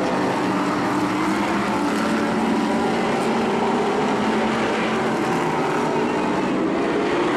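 Several modified race cars' engines running hard at racing speed on an oval, blending into one steady, loud engine sound with no single car standing out.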